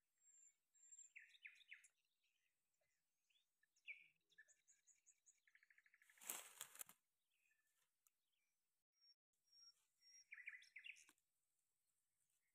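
Birds chirping: short rapid trills and high thin whistles, coming and going. A brief loud burst of noise, about a second long, about six seconds in.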